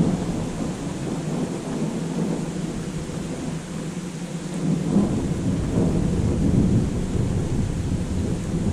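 Thunder rumbling over the steady hiss of rain, the rumble swelling and deepening about halfway through.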